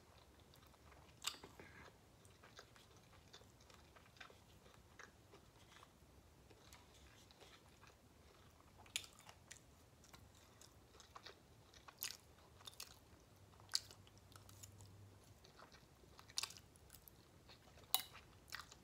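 Quiet, close-miked chewing of a forkful of pasta salad, with sharp wet mouth clicks scattered through it.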